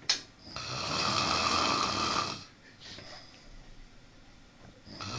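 A sleeping person snoring loudly: one long, rough snore of about two seconds, then a quieter breath, with the next snore starting near the end. A brief sharp click comes right at the start.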